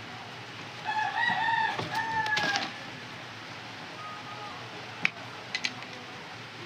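A rooster crowing once, a drawn-out call of about two seconds starting about a second in. A few sharp clicks follow later on.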